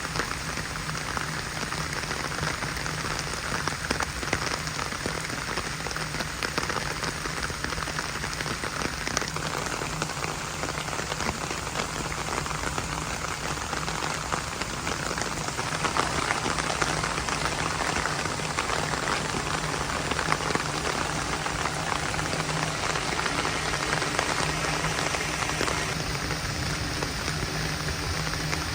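Heavy rain falling steadily, a dense patter of drops on a hard surface, growing a little heavier about halfway through.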